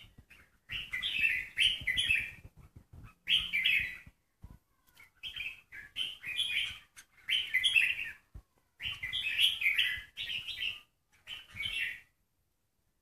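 Red-whiskered bulbul singing: a run of short, bright warbled phrases, one about every second, which stops near the end.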